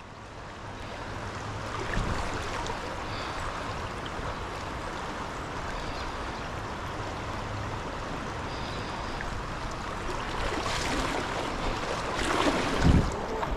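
Stream water rushing steadily past, growing a little louder near the end, with a few low thumps shortly before the end.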